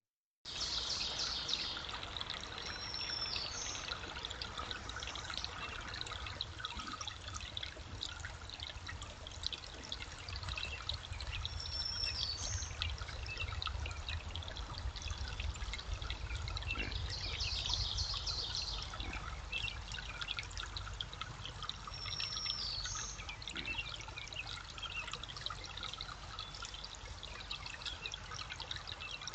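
Steady trickle of running water, crackling, with a low rumble underneath. A bird calls three times, each a short high whistle ending in a quick upward flick.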